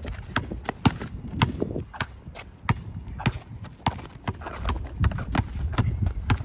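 Irregular sharp taps and thuds of a one-on-one basketball game, about two or three a second: footsteps and a basketball bouncing on a hard court.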